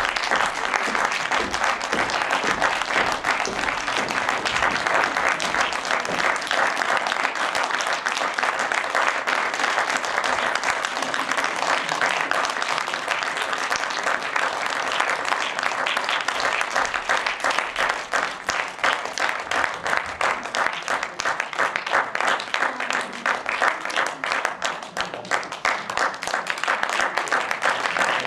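Theatre audience applauding: dense, steady clapping, which grows a little sparser in the second half so that single claps stand out.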